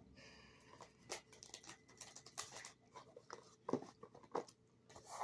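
A run of irregular light taps and clicks close to the microphone, several a second, with no speech.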